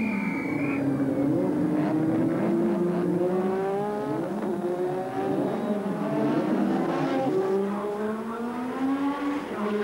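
A short whistle blast that ends about a second in, then turbocharged 1980s Formula One car engines running in the pit lane, one rising slowly in pitch as a car pulls away while others pass.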